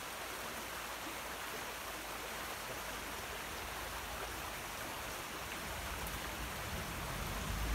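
Steady outdoor ambient hiss, even and unbroken, with a low rumble building near the end.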